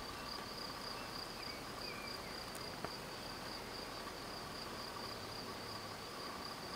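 Insects trilling steadily at a high pitch, with a fainter lower steady trill beneath and one short click near the middle.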